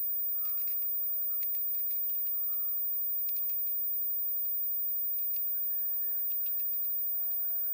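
Small plastic pellets clicking into a toy pistol's plastic magazine as they are pressed in one at a time: short, sharp clicks that come in several quick clusters.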